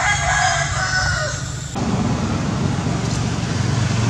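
A drawn-out animal call, high and pitched, lasting about two seconds, which cuts off abruptly and gives way to a steady low rumble.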